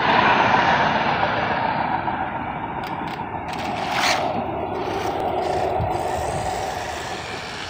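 Vehicle noise on a street: an even rushing sound, loudest at the start and slowly fading, with a short hiss about four seconds in.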